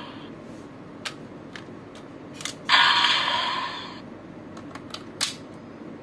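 Clicks and snaps of hard plastic as Raise Buckles are pulled from and slotted into a DX Desire Driver toy belt. Near the middle, the belt's speaker plays a short electronic sound effect that fades away over about a second.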